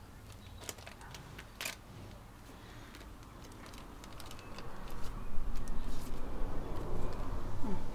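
Scattered light clicks and taps of small parts being handled, then about five seconds in a low, uneven rumble comes in and becomes the loudest sound.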